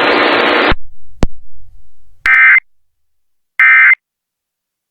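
Emergency Alert System end-of-message data bursts: short, buzzy, identical SAME tone bursts, two full ones about a second and a half apart and a third starting right at the end. Before them a loud hiss cuts off under a second in, followed by a single click.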